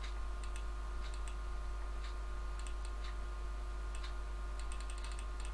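Scattered light clicks from a computer mouse and keyboard while a value is entered in a dialog box, over a steady electrical hum.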